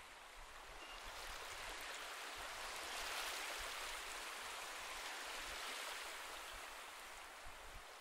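Gentle ocean waves washing on a shore: a soft hiss that swells over the first few seconds and ebbs again near the end.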